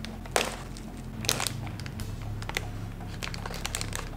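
A foil-lined snack bag being slowly torn open with the teeth, giving separate crinkles and crackles rather than one long rip. The loudest crackle comes about half a second in, with another cluster just after a second and smaller ticks after that.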